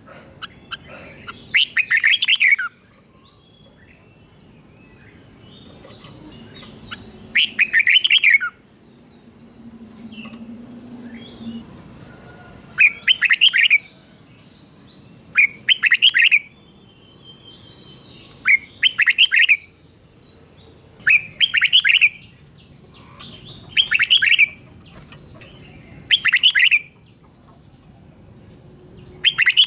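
Red-whiskered bulbul singing the doubled song that Thai keepers call 'เบิ้ล' (berl). Short, clear phrases come about every two to three seconds, with a few longer pauses in the first half.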